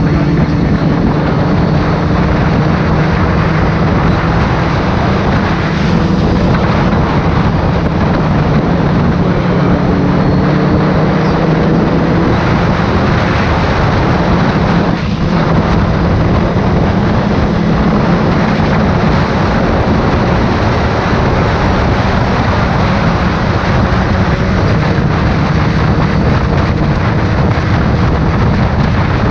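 Motorcycle engine running at cruising speed, its pitch drifting gently up and down, under heavy wind rush and road noise on the bike-mounted microphone. The bike is a BMW K1300S with an inline-four.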